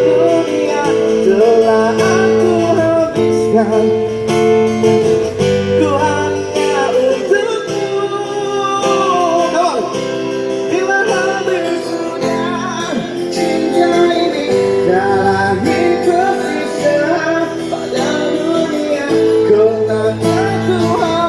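Live busking band playing an instrumental passage: guitar chords held under a wavering melody line.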